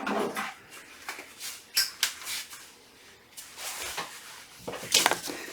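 Small metal hand tools being rummaged through and picked up: irregular clinks, clicks and rustles in uneven bursts, the busiest near the end.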